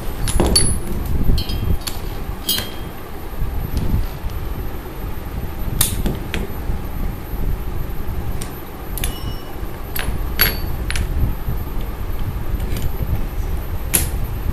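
Pneumatic impact gun running, spinning a 24-volt truck alternator by its pulley nut to test whether it charges. It makes a steady low rumble, with a thin high whine and about ten sharp clicks and knocks scattered through it.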